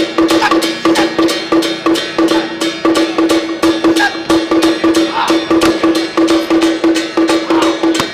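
Traditional Taiwanese Song Jiang Zhen percussion accompaniment: a fast, even beat of sharp drum strokes, several a second, with a ringing pitched tone pulsing on each beat, driving a martial routine.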